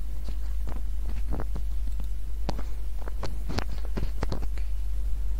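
Light, irregular computer keyboard and mouse clicks, a dozen or so sharp taps, over a steady low electrical hum.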